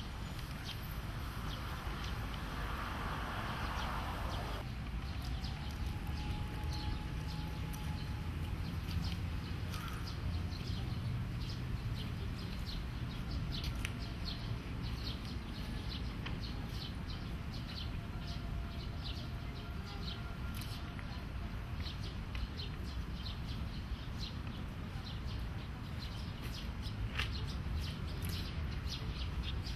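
Outdoor park ambience: small birds chirping over and over, many short high chirps, over a steady low rumble.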